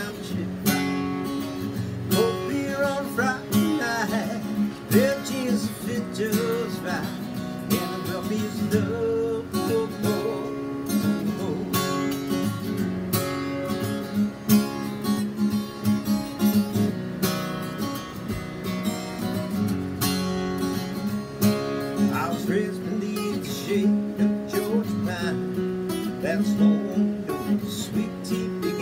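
Acoustic guitar strummed steadily, its chords ringing in a steady rhythm.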